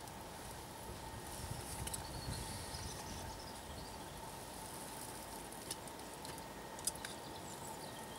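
Quiet outdoor ambience: a faint steady hiss with a thin steady tone, faint high chirps early on, and a few isolated sharp clicks.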